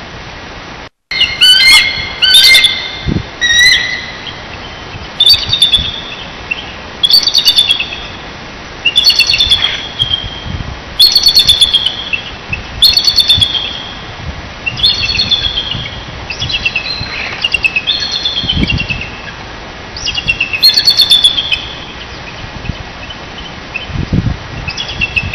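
Bald eagles calling back and forth: repeated bursts of high, rapid, chattering chirps and piping calls, every second or two, falling quiet near the end. A steady hiss from the webcam microphone lies underneath.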